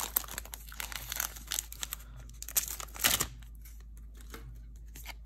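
Foil booster-pack wrapper of a Magic: The Gathering pack crinkling and crackling as it is torn and peeled off the cards, in scattered bursts with one louder crackle about three seconds in.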